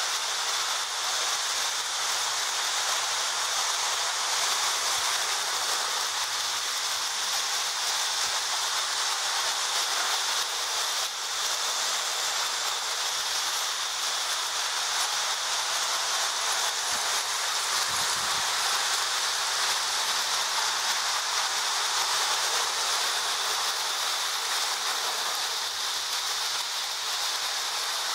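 Several Marx tinplate toy trains running together on three-rail tubular track: a steady rushing whir of metal wheels on the rails and small electric motors, with a constant high whine.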